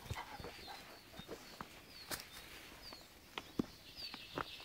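Quiet outdoor ambience: scattered faint rustles and a few sharp taps of movement on dry grass, the loudest near the end, with small birds chirping in short falling notes about once a second in the background.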